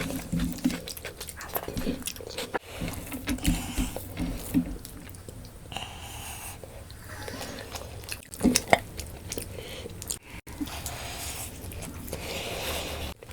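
Close-miked eating sounds: a person biting and chewing food, with wet mouth smacks and sharp clicks, and a few crunchy bites.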